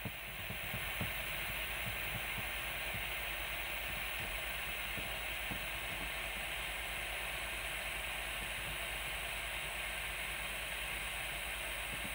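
Portable butane soldering iron hissing steadily as it burns gas.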